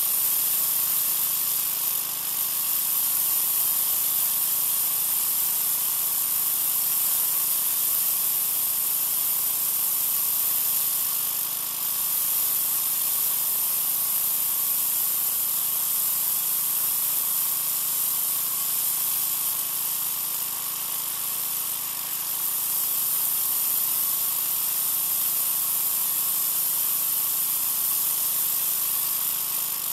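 Troy-Bilt 2200 psi pressure washer spraying concrete through an oscillating tip: a steady, loud hiss of the water jet, with the washer's motor running underneath as a steady tone. The spray dips briefly a few times.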